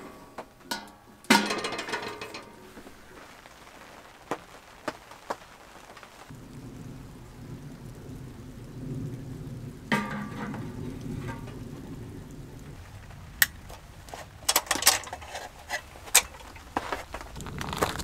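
Metal clicks and clanks of a small stainless-steel wood stove's door being shut and latched. About six seconds in, steady rain takes over, with a single clunk and, near the end, a run of sharp clicks.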